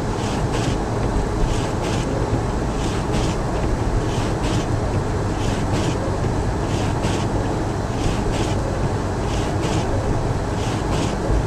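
Car driving on snow-covered roads, heard from inside the cabin: steady engine and road noise. A pair of short hissing swishes repeats about every second and a half.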